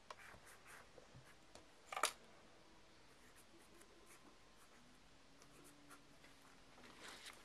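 Near silence: room tone with faint scattered clicks and rustles of handling, and one sharper tap about two seconds in.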